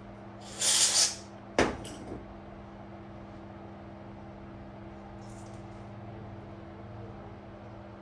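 A short hiss lasting about half a second, then a single sharp knock and a couple of small clicks, over a steady electrical hum.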